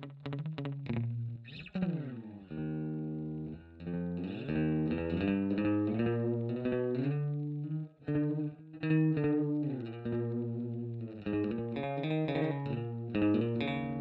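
Electric guitar, a Fender Jaguar, played through an Electro-Harmonix Polyflange in Double Track mode set for slapback delay and amplified by a Fender Twin Reverb. It opens with quick strumming, slides in pitch about a second and a half in, then plays ringing chords that change every second or so.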